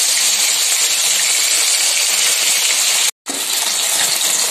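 Loitta (Bombay duck) fish pieces sizzling in shallow oil in an aluminium kadai: a steady, crackling hiss. It breaks off for a moment about three seconds in, then goes on a little quieter. The fish are close to done frying.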